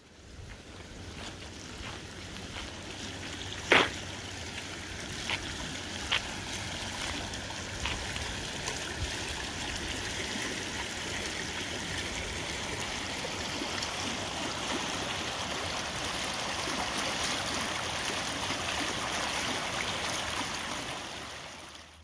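Creek water running, a steady rushing hiss that swells in over the first couple of seconds and fades away near the end. A few sharp clicks sound over it, the loudest about four seconds in.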